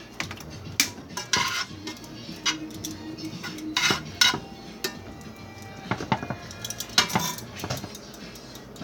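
Metal tongs clinking and scraping against a cast iron skillet as shredded chicken is turned in the pan, in irregular knocks with the sharpest ones about one, four and seven seconds in.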